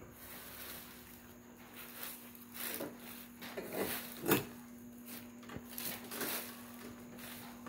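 Rustling and knocking of plastic hearse-prop parts being handled during assembly, a few short bursts with the loudest about four seconds in, over a steady low hum.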